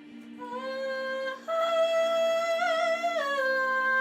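Background music: a high voice sings long held notes over a steady low drone, stepping up about a second and a half in and back down about three seconds in.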